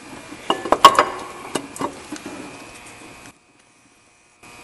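A few sharp metal knocks and clinks as the old engine water pump is tapped loose and worked off its mounting, the loudest about a second in. The sound then drops out to dead silence for about a second near the end.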